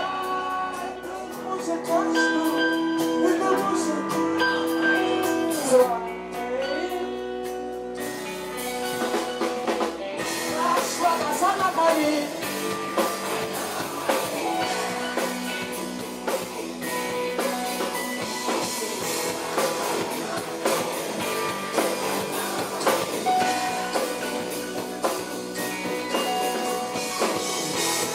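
Pop-rock song with guitar and drum kit. The opening stretch is lighter, with held melody notes, and the full band with drums comes in about eight to ten seconds in.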